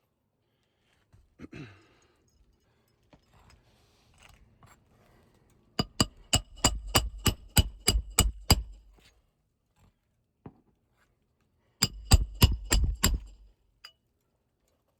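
Roofing hammer driving nails into brittle asphalt 3-tab shingles: a quick run of about ten strikes, then after a pause a shorter run of about five.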